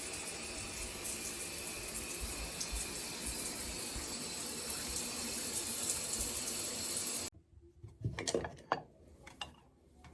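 Kitchen tap running steadily into a sink, stopping abruptly about seven seconds in, followed by a few light knocks and clinks.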